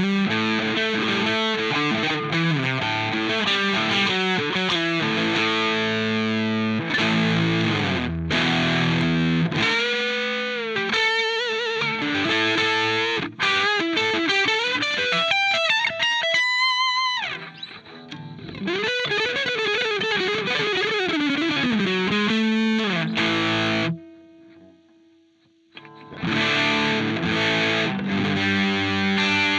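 Electric guitar played through a TC Electronic Mojo Mojo overdrive pedal: overdriven chords and riffs, with bent and wavering lead notes in the middle stretch. The playing stops for about two seconds near the end, then the chords start again.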